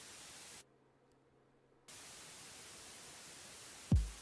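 Synthesized white noise from an FL Studio 3x Osc oscillator, an even hiss that stops about half a second in and starts again about a second later. Near the end a single electronic kick drum thumps, its pitch dropping fast.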